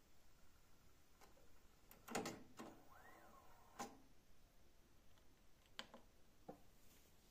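Yamaha K1020 cassette deck being operated: a series of sharp mechanical clicks and clunks from its buttons, cassette door and tape transport. The loudest cluster comes about two seconds in, with a brief faint rising-and-falling whine around three seconds.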